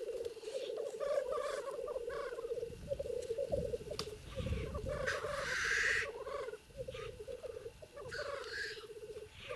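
Male black grouse at a lek: a near-continuous bubbling, cooing song, broken several times by short loud hissing calls, the loudest about five to six seconds in.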